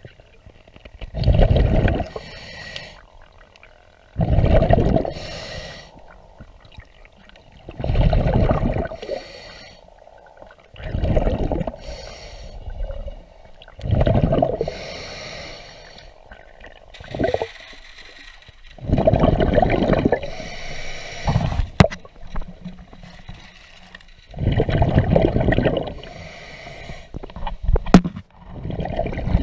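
Scuba diver breathing underwater through a regulator: each breath drawn in and then exhaled as a rush of bubbles, in a steady cycle about every three to four seconds.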